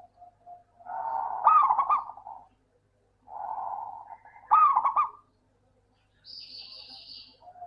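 Zebra dove (perkutut) song: two phrases, each a softer rolling coo that runs into a quick string of louder, arched coos. The first comes about a second in and the second about four seconds in. A fainter, high hissy call follows near the end.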